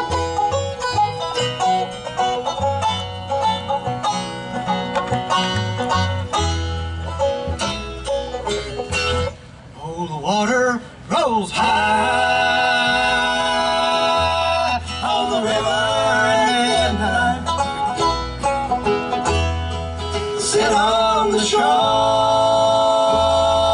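Live bluegrass band: for the first half a fast banjo break, picked with fingerpicks on a resonator banjo, over upright bass and rhythm guitar. Then, after a short dip, the band moves into long held harmony notes sung over the instruments.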